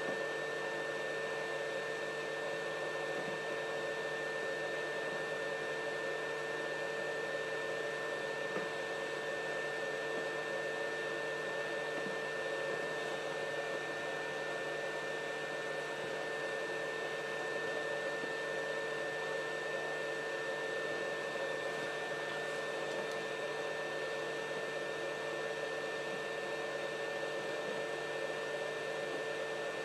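A small electric fan running steadily, an even whir with a constant low hum and a high whine through it.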